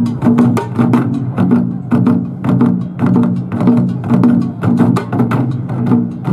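A group of Korean buk barrel drums struck with wooden sticks in a fast, steady rhythm, strong beats about twice a second with quicker lighter strokes between them, some sharp clicks of stick on wood.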